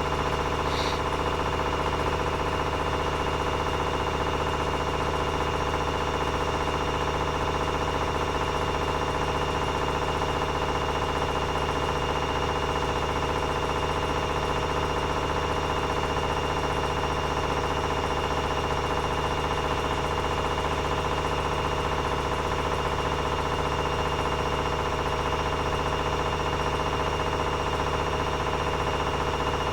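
Privileg 9515 Sensation washing machine spinning at 900 rpm with a steady motor and drum hum. A knock comes from inside the machine, which the owner hears only with laundry loaded and cannot trace: the drum does not wobble and has no play.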